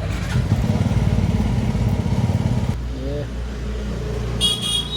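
A motorcycle engine running with a fast low throb that cuts off sharply just under three seconds in. It is followed near the end by a short, high vehicle horn toot.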